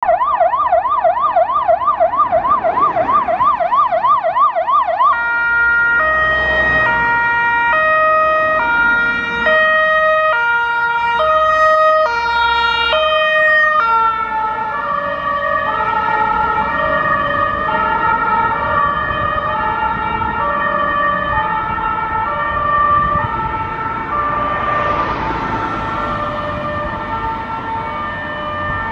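Fire truck's electronic siren passing on an emergency run. It sounds a fast warbling yelp, then switches about five seconds in to a steady two-tone hi-lo. The two-tone drops in pitch as the truck goes by about halfway through, over the rumble of the passing truck.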